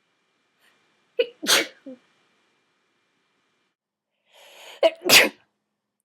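A woman sneezing twice during a sneezing fit, each sneeze a sharp catch of breath followed by a loud explosive burst, the first about a second in and the second near the end.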